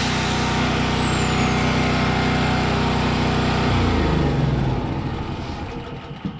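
Angle grinder fitted with a sanding pad, running steadily with no load, then switched off a little over three and a half seconds in and winding down, its pitch falling over a second or so.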